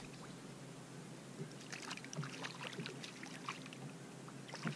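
Faint small water splashes and trickling ticks from a hooked pejerrey flapping at the surface of shallow water as it is reeled in, with scattered light ticks throughout.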